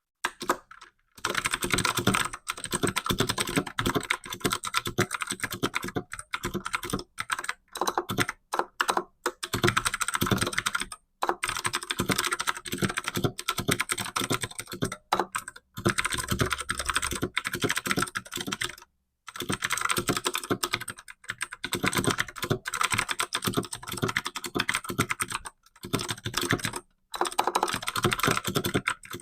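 Fast typing on a computer keyboard: rapid streams of key clicks in bursts, broken by brief pauses of about half a second several times.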